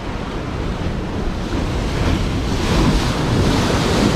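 Ocean surf breaking against the boulders of a rock jetty: a rushing wash of water that swells louder in the second half as a wave crashes into the rocks.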